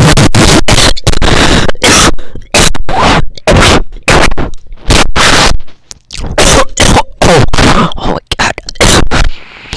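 Very loud, harsh, distorted noise in choppy bursts that start and stop abruptly, about two a second.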